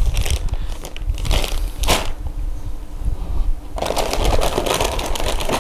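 Clear plastic parts bags crinkling and rustling as they are handled and rummaged through in a cardboard kit box. A few sharp crackles come in the first two seconds, then steady rustling from nearly four seconds in.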